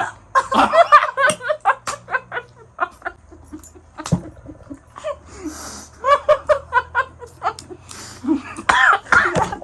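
People laughing in several bouts of quick, repeated ha-ha pulses.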